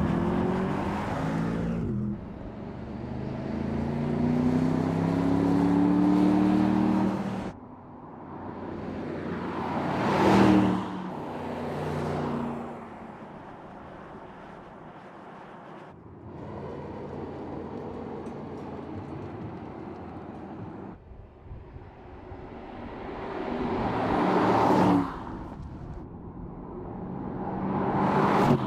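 Mercedes-AMG GT's 4.0-litre twin-turbo V8 accelerating, its note climbing and then cutting off abruptly, several times over. Between the pulls the car swells up and fades away as it passes by, about ten seconds in, again near 25 seconds, and once more at the very end.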